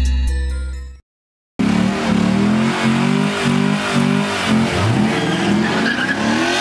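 Music fades out, and after a brief silence a muscle car's engine revs hard, rising and falling in pitch over a steady rush of noise as its rear tyres spin in a smoky burnout.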